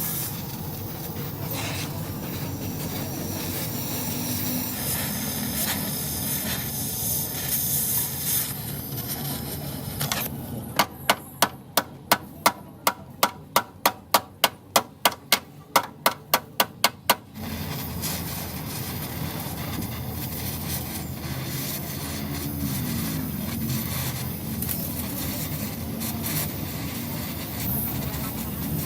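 A hammer striking metal, as in body-panel beating: a run of about eighteen sharp, evenly spaced blows at roughly three a second, lasting about six seconds midway. A steady noisy hiss carries on before and after.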